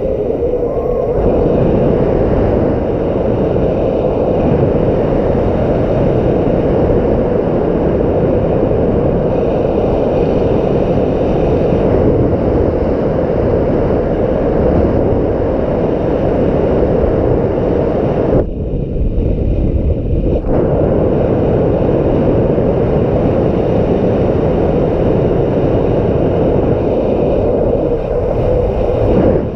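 Strong gusting wind blowing over the microphone: a loud, steady rushing noise that thins briefly about two-thirds of the way through.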